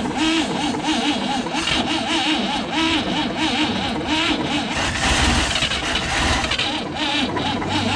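1957 Chevy truck's inline-six being cranked over by the starter, a whine that wavers in pitch about four or five times a second, while the fuel system is still full of air. A deeper rumble comes in about five seconds in as the engine starts to fire.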